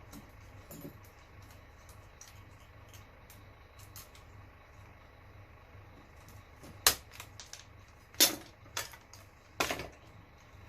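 Clicks and knocks of tools and metal and plastic parts being handled while an old computer is taken apart. Faint scattered ticks at first, then four sharp, loud clacks in the second half.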